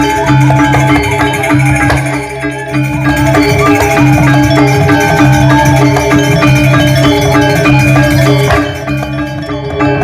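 Balinese gamelan playing for a Barong dance: metallophones ring quick repeated notes over a steady low pulse.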